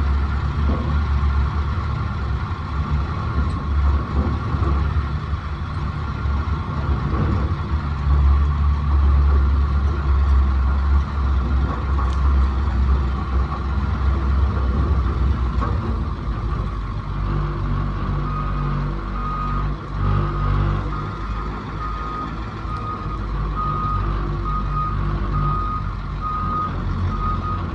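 Heavy machine engine running steadily and loudly. From about two-thirds of the way in, a reversing alarm beeps at an even pace.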